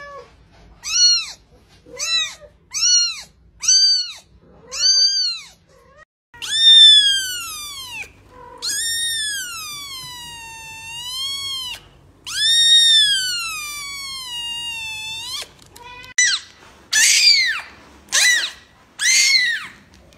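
Kittens meowing: about five short, high meows, then three long drawn-out meows that rise and fall in pitch, then a quicker run of short meows near the end.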